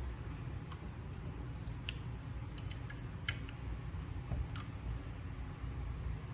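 Scattered, slow keystrokes on a Rosé TKL mechanical keyboard with lubed JWK Marshmallow linear switches on a polypropylene plate and GMK keycaps: a few isolated clacks spread unevenly, the clearest about two, three and four and a half seconds in, over a steady low background hum.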